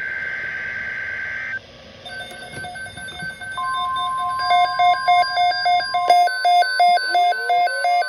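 Weather alert radios sounding an Emergency Alert System alarm. A buzzy data tone ends about a second and a half in. Then several Midland weather alert radios start beeping out of step at different pitches over a steady warning tone, the beeps growing loud and pulsing about three times a second, with a rising tone near the end.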